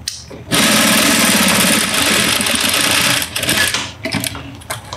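Industrial straight-stitch sewing machine running at speed, stitching a narrow fabric strip into a cord; it starts about half a second in, runs steadily for about three seconds and stops, followed by a few light clicks.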